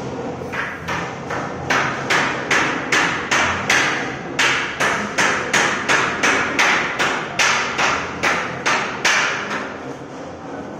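Hand hammer striking repeatedly and evenly, about three blows a second, while an aluminium window frame is fixed into its wall opening; each blow rings briefly, and the hammering stops near the end.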